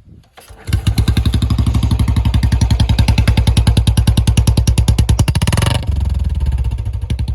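Royal Enfield Bullet single-cylinder engine (BS6, 2022, short Punjab silencer) starting up. It catches less than a second in and settles into a loud, even dug-dug idle beat, with a brief change in tone about two-thirds of the way through.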